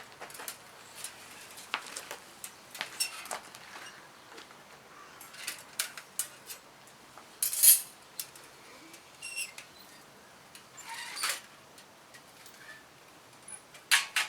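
Handling of a small sheet-metal fire box stove: scattered light clicks and clinks of metal parts, with two louder scraping rustles, one about halfway through and one about three-quarters through.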